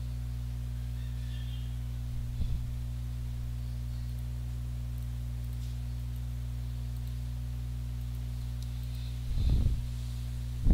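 Steady low electrical hum, with a few soft low thumps about two and a half seconds in and again near the end.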